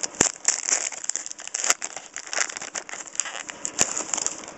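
Trading cards and their pack being handled and flipped through: an irregular run of small clicks, rustles and crinkles, with a few sharper snaps.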